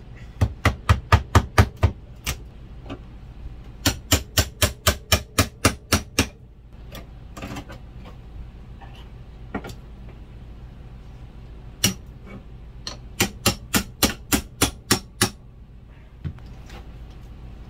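Hammer striking a flat pry tool wedged between an RV refrigerator's frame and its cabinet, to break the stuck fridge loose. The strikes come in three quick runs of about eight to ten blows at roughly five a second, with a lone blow between the second and third runs.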